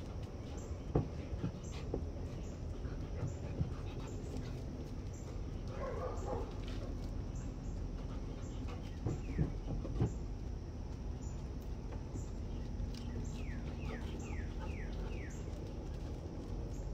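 A dog whimpering: a short call about six seconds in, then a run of high, falling whines near the end, over steady low background noise.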